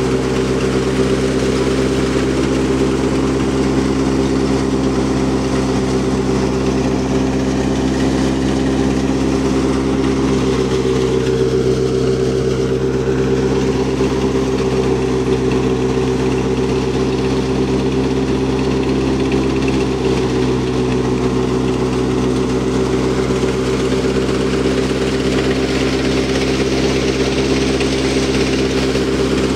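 Tractor-powered wheat thresher running continuously: a steady, even mechanical drone from the engine and the belt-driven threshing machine. The pitch shifts slightly about ten seconds in.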